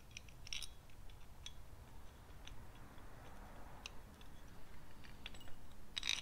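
Light scattered clicks and taps of metal parts being handled as a timing belt tensioner and its bolt are fitted by hand to an engine, with a quick cluster of clicks near the end.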